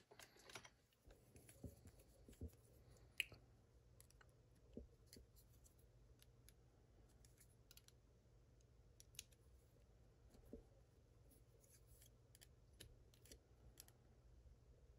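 Faint, scattered small metallic clicks and taps of a disassembled padlock's parts being handled, over a low steady hum.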